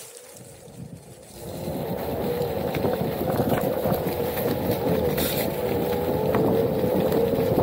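Onewheel's hub motor whining at a slightly wavering pitch over the rumble of its tyre rolling on a chunky trail, growing louder about a second and a half in, with a few sharp clicks.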